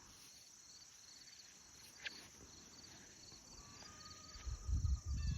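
Crickets chirping in a steady, evenly pulsing rhythm, with a faint click about two seconds in. A low rumble sets in about four and a half seconds in and becomes the loudest sound.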